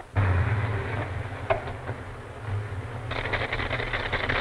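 Old open touring car's engine running, a steady low hum with a noisy rumble. About three seconds in a fast rattling buzz joins it.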